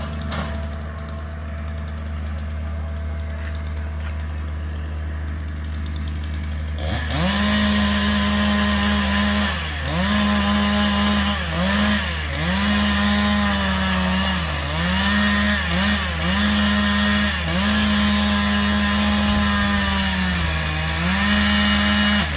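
Chainsaw revving up about a third of the way in and running at high speed, its pitch dipping and recovering several times, over a steady low engine hum.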